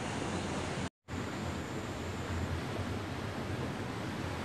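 Fast-flowing river rushing steadily, a loud even wash of water noise. The sound cuts out completely for an instant about a second in.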